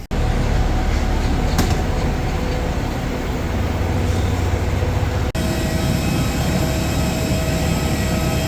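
Steady low rumble of a vehicle in motion, heard from inside it. The sound changes abruptly about five seconds in, after which a few steady tones run over the rumble.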